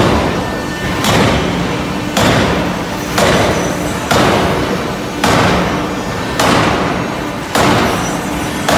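Forging machine's dies striking a red-hot stainless steel bar in a steady rhythm, about one heavy blow a second, each ringing out briefly, over a low steady machine hum.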